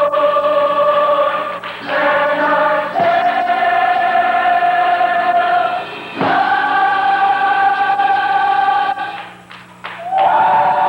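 High school gospel choir singing long held chords. The chord moves up in steps a few times, with a short drop in level near the end before a new, higher chord comes in.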